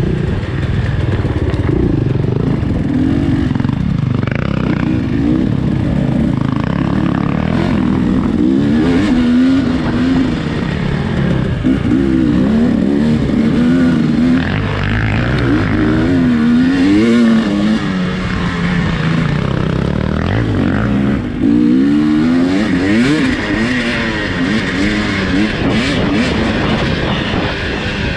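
A race vehicle's engine running hard, its pitch rising and falling again and again as it speeds up, shifts and slows.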